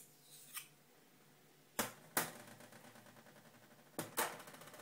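Metal spoon clinking against a small glass bowl as butter is scraped off into it, a handful of sharp separate clicks: one about half a second in, two close together near two seconds, and two more around four seconds as the spoon is set down.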